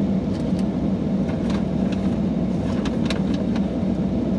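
Steady road and engine noise inside a moving car's cabin, with a few short clicks.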